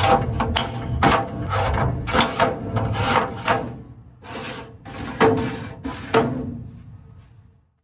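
Steel drawers of a Snap-On tool box being slid in and knocked into place, a quick run of metallic clanks and clatters with a ringing tone that thins out near the end.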